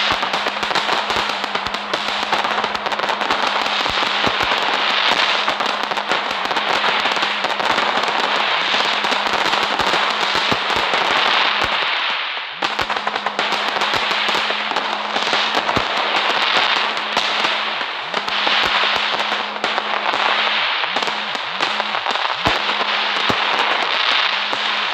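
Firecrackers going off in a dense, continuous crackle of rapid pops, with a brief break about halfway through. A steady low hum runs underneath.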